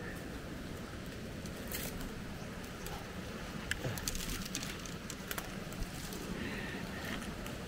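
Footsteps crunching through wet storm debris, scattered sharp snaps and crackles over a steady outdoor rush.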